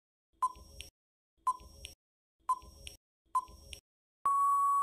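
Quiz countdown timer sound effect: a short beeping tick about once a second, four times, then a long steady beep near the end signalling that time is up.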